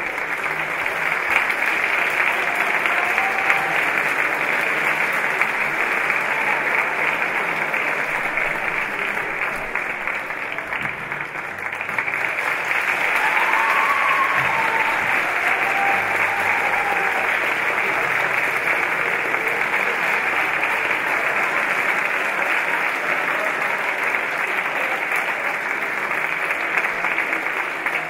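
Large theatre audience applauding: dense, steady clapping that dips briefly about halfway through, then swells again.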